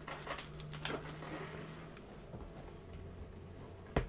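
Handling noise from a kitchen faucet being fitted: its supply hoses rustle and click as they are fed down through the sink's mounting hole, then one sharp knock near the end. A faint steady low hum sits underneath.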